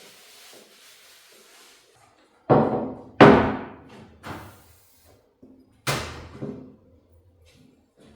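A handful of sudden thumps and knocks, five in all, the loudest about three seconds in, each ringing on briefly.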